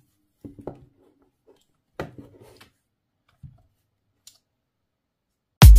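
A few light clicks and knocks of handheld plastic meters being handled and set down on a tabletop, the sharpest about two seconds in. Loud electronic music with a steady beat starts abruptly near the end.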